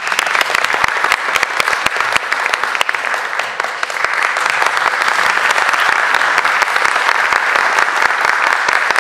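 Concert audience applauding steadily: a dense, even patter of many hands clapping.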